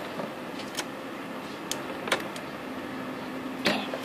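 Scattered light clicks and taps of plastic toy-playset pieces being handled, about five in four seconds, over a faint steady hum that comes in about two-thirds of the way through.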